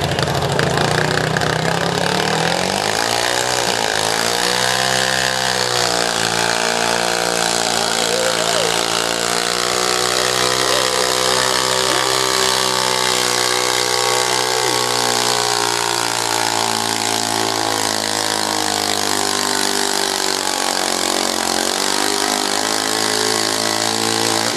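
Modified garden pulling tractor's engine revving up about three seconds in, then held at high revs as it drags a weight-transfer sled. The pitch sags slightly in the second half as the sled load builds.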